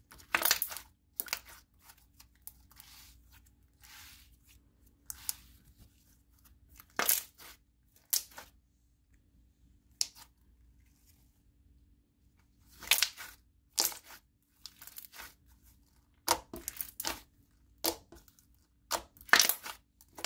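Thick glittery jelly slime being squeezed and kneaded by hand, making irregular short wet squelches with quiet gaps between, more and louder ones in the second half.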